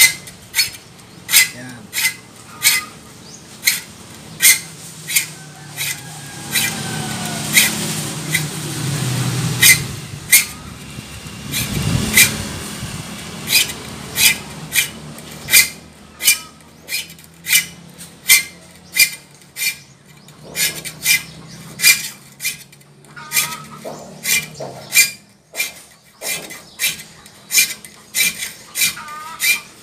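A small metal file rasping across the teeth of a handsaw clamped in a steel bench vise, sharpening its dulled teeth. Short, even strokes come about three every two seconds, each with a bright metallic ring.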